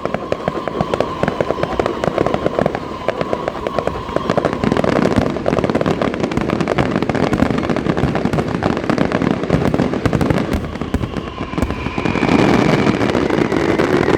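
Firecrackers and fireworks going off in a dense, rapid crackle, with a steady tone over the first few seconds and a higher tone near the end.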